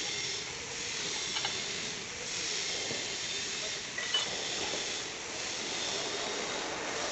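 Metal lathe being worked and started with a truck wheel hub in its chuck: a steady hiss, with light metal clicks about one and a half and four seconds in as the handles and levers are worked.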